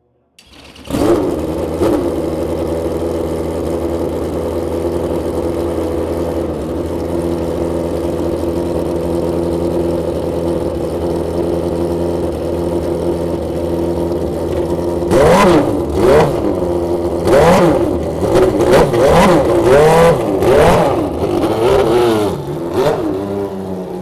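Benetton B193 Formula 1 car's Ford HB V8 racing engine comes in suddenly about half a second in and idles steadily and loudly. From about two-thirds of the way through, a series of sharp throttle blips send the revs quickly up and back down, easing off toward idle near the end.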